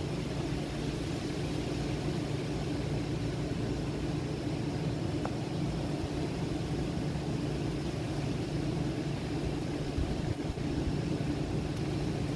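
Steady low outdoor rumble with a constant low hum beneath it.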